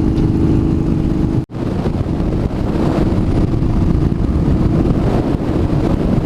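Yamaha Bolt's air-cooled V-twin with Vance & Hines twin slash exhaust running steadily under way, heard from the rider's helmet mic. The sound cuts out for an instant about one and a half seconds in.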